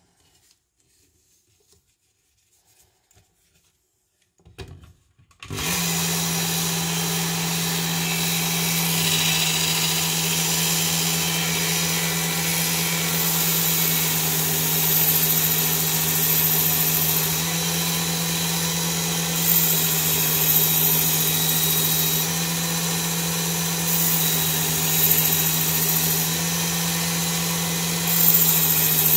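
Work Sharp Ken Onion belt sharpener with its blade grinding attachment starting up about five seconds in and then running steadily on the super fine belt, a constant motor hum with a high hiss that swells and fades several times as a knife edge is drawn across the belt.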